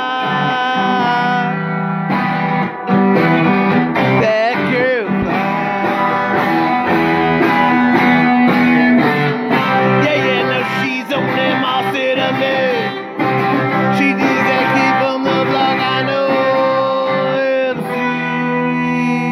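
Electric guitar with a Stratocaster-style headstock played in sustained melodic lines, with string bends and vibrato.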